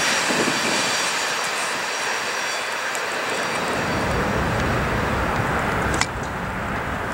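Double-stack container freight train rolling past, steel wheels running on the rails with faint high squealing tones, the noise easing off as the cars move away. A sharp click about six seconds in.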